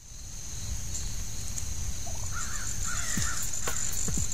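A crow cawing in a short run of calls about two seconds in, over a steady high-pitched insect drone. Deep thumps begin about three seconds in.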